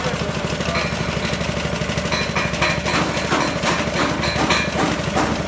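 An engine running steadily with a fast, even low throb. From about two seconds in, a run of sharp knocks is heard over it.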